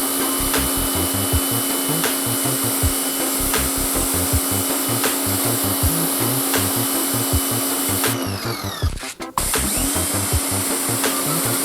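Lavor Predator 160 electric pressure washer running steadily, a constant hum with a spray hiss, under background music with a steady beat. Both break off briefly about eight seconds in, then carry on.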